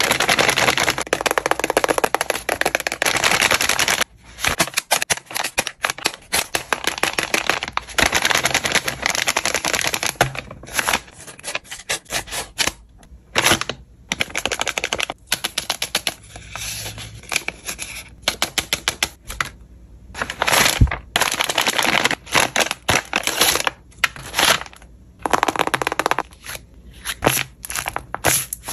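Crinkling, rustling and crackling of tape-covered paper as a handmade paper blind bag and paper squishy are handled and opened, in rapid runs of crackles and clicks broken by short pauses.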